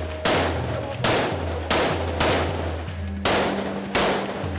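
Rifle fired in single shots, six of them at an even pace about two-thirds of a second apart, each shot echoing off the concrete walls of a narrow alley.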